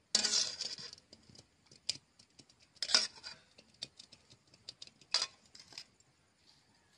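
Steel spatula scraping inside a steel kadai and clinking against a small steel bowl while curry is scooped out. A loud scrape comes first, then scattered light clicks and clinks, with sharper knocks about three and five seconds in.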